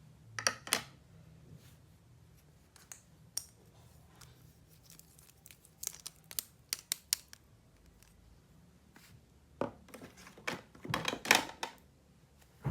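Toy packaging and plastic toy pieces being handled: scattered sharp clicks, taps and crinkling, busiest about half a second in and again near the end.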